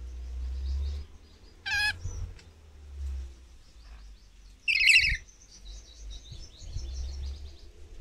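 Rainbow lorikeets calling: a short harsh screech about two seconds in, then a louder screech at about five seconds, followed by a run of softer, quick chattering notes. A low rumble runs underneath.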